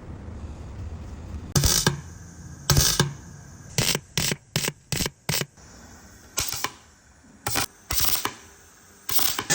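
An irregular series of about a dozen sharp clicks and knocks, some single and some in quick runs, the densest cluster about four to five seconds in.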